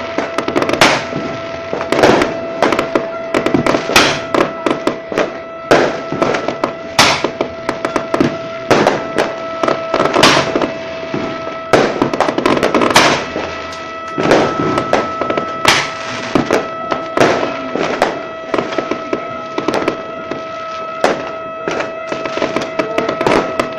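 Fireworks going off in quick, irregular succession: sharp bangs and crackles, several a second, with no let-up.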